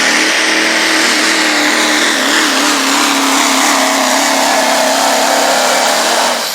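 Diesel pickup truck engine running at full throttle under heavy load, pulling a weight sled. Its pitch holds high, sags slightly and wavers, then stops abruptly.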